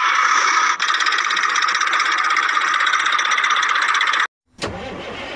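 Tractor engine running with a fast, buzzy chatter that cuts off abruptly about four seconds in. After a brief gap, a quieter, deeper engine sound starts.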